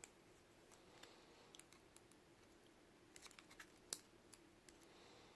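Near silence broken by faint, scattered light clicks and scratches of small lock pins and tools being handled, a dozen or so, most of them in the second half, the sharpest one near four seconds in.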